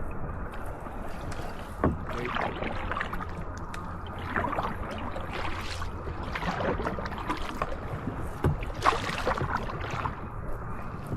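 Kayak paddles dipping and pulling through the water, with repeated splashes and drips every second or two and a couple of sharp knocks.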